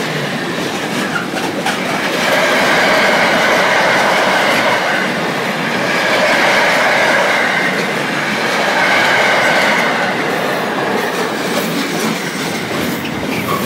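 Loaded container wagons of a long intermodal freight train rolling past close by, their wheels clattering over the rail joints. A steady high-pitched wheel squeal swells and fades several times through the middle of the passage.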